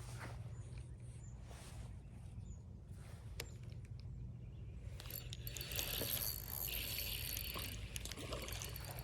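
Water splashing and churning, starting about five seconds in and lasting a few seconds, over a steady low rumble.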